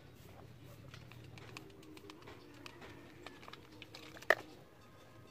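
A dove cooing faintly, over small clicks of a glass bottle being scrubbed inside with a bottle brush; one sharp glass clink a little after four seconds in.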